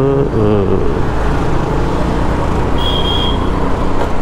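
Steady road and wind rumble with traffic engines humming while riding a scooter through city traffic. A short high-pitched beep sounds about three seconds in.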